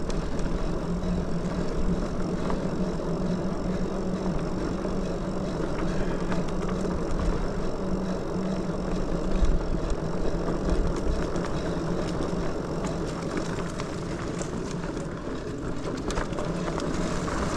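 Lectric XPeak 2.0 electric bike riding a dirt trail: a steady hum with low rumble from the tyres and wind on the microphone.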